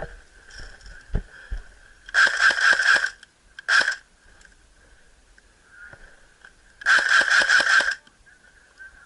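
Airsoft electric gun firing on full auto, a rapid string of sharp clacks in three bursts: about a second long, then a brief one, then another about a second long.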